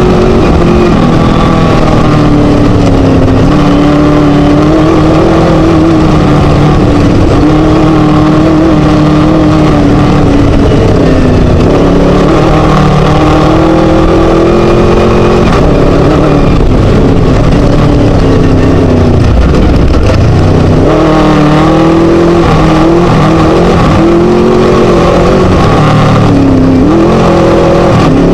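Class 1 desert race buggy's Scat engine running hard and loud. Its pitch rises and falls with the throttle and gear changes, dropping about two-thirds of the way through and then building again.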